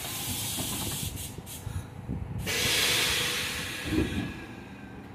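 Compressed-air hiss from a stopped R46 subway train with its doors closed: a sudden hiss that steps up loudly about halfway through and then fades, with a low thump about four seconds in, as the train readies to depart.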